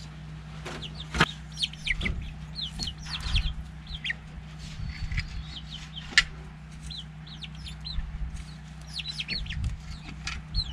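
Chickens clucking with many short, high, falling calls throughout. A few knocks from the work on the coop, with one sharp tap about six seconds in, over a steady low hum.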